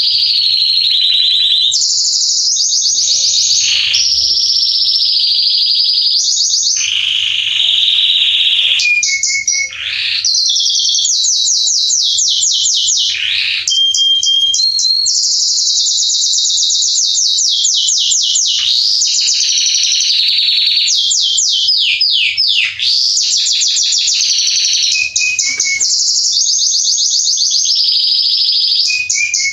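Male Belgian canary singing continuously and loudly: long, fast, high trills and rolling runs of repeated notes, with quick descending sweeps and a brief steady whistled note about halfway through.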